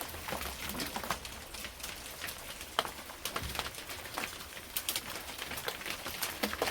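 Rain pattering on a surface: many irregular sharp drop clicks over a steady hiss.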